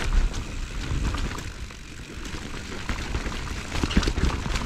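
Mountain bike riding down a rough trail: wind buffeting the microphone with a low rumble, and scattered knocks and rattles from the bike over the ground.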